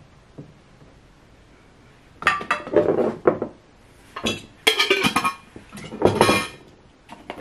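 Small hard objects clinking and clattering as they are handled and sorted through, in several bursts over the last five seconds.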